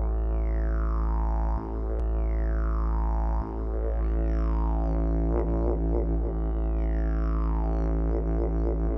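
Background music built on a deep, steady drone, with a falling sweep in pitch repeating roughly every two seconds.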